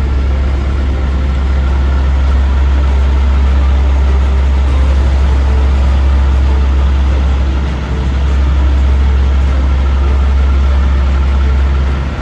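Heavy diesel paving machinery running steadily, a strong deep hum that dips briefly about eight seconds in.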